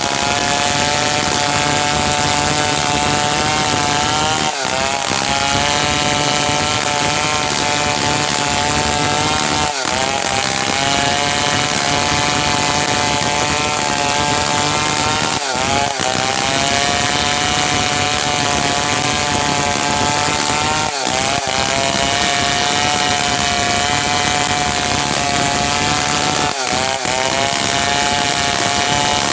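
Stihl 070 two-stroke chainsaw running at high revs while sawing merbau hardwood. The engine note holds steady, with a short dip and recovery in pitch about every five seconds.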